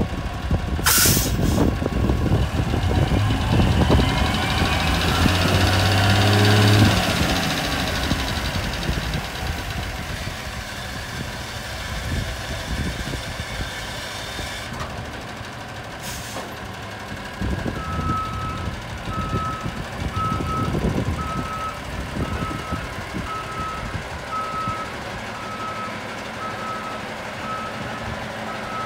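Euclid R35 haul truck's Cummins diesel engine revving up under load, rising in pitch for several seconds, then easing back to a lower run. From about eighteen seconds in, the truck's backup alarm beeps steadily, about one and a half beeps a second, as it reverses. Two short hisses of air come, one about a second in and another around sixteen seconds.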